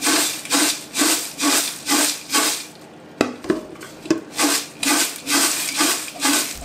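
Fried cornflakes and poha chivda tossed by hand in a large metal pot to work in the spices: a crisp, dry rustling crunch in a steady rhythm of about two strokes a second. It pauses briefly in the middle, with a single sharp click, then resumes.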